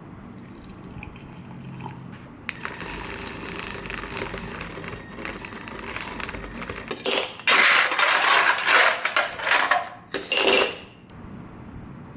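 Objects being handled: rustling with small clinks and clicks, growing into a louder stretch of dense rustling and clatter about seven seconds in that cuts off sharply shortly before the end.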